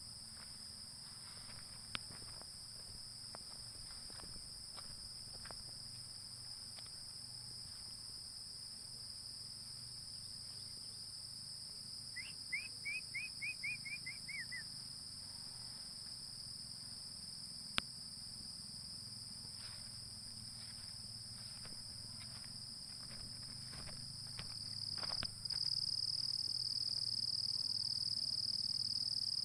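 Crickets or other night insects trilling steadily in one high band, which grows louder about three-quarters of the way through. About halfway through comes a run of about nine quick, falling chirps from an unseen animal, with a few sharp clicks scattered around it.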